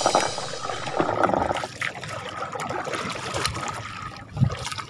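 A boat paddle stroking through lake water, water splashing and trickling off the blade, with a low thump near the end.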